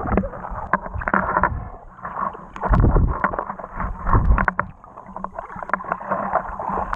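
Muffled water sloshing and gurgling around a camera held under water, with many small clicks and knocks and two heavy low surges about three and four and a half seconds in.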